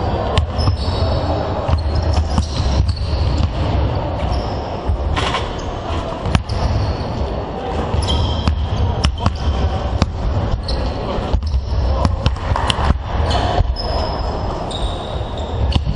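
Several basketballs bouncing on a wooden court floor, irregular knocks overlapping from different balls, with short sneaker squeaks and a steady low rumble under them.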